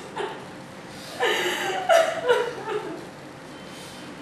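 A person's voice in short broken bursts lasting about a second and a half, starting about a second in.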